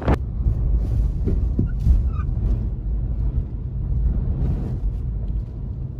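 Steady low rumble inside a car's cabin as it drives slowly in high wind: engine and road noise with the wind outside.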